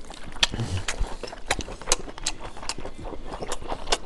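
Close-miked mukbang eating sounds: wet chewing smacks and irregular sticky clicks from a full mouth, along with a large saucy piece of braised meat being pulled apart by hand. A short muffled hum with the mouth full comes about half a second in.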